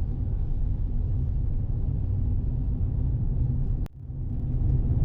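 Low, steady rumble of a car driving slowly, heard from inside the cabin. It cuts out suddenly with a click about four seconds in, then builds back up.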